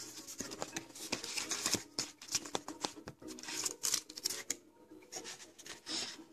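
Paper and cardboard rustling and scraping as a booklet is lifted out of a small cardboard box, with many small handling clicks. The rustling is busiest for the first four or five seconds, then thins out to a few scattered scrapes.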